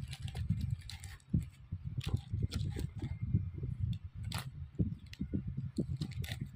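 Close-miked eating: chewing, heard as a dense, irregular run of small clicks and crackles.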